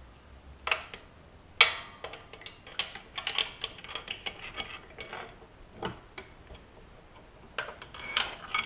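Irregular small metallic clicks and clinks, with one sharper knock about one and a half seconds in, as fingers and small parts are handled inside the open crankcase of a Briggs & Stratton single-cylinder engine. The engine is being searched for the fragments of a shattered camshaft compression release.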